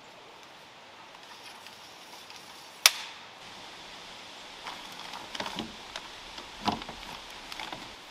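One sharp metallic clack about three seconds in, then a run of lighter knocks and clatters as a metal ladder is loaded into a Jeep's rear cargo area.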